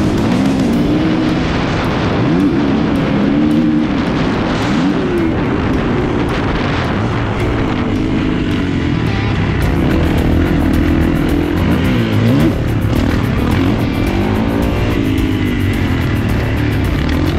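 2021 Kawasaki KX450's single-cylinder four-stroke engine, ridden hard on a motocross track. It revs up and drops back again and again, its pitch rising and falling every second or two.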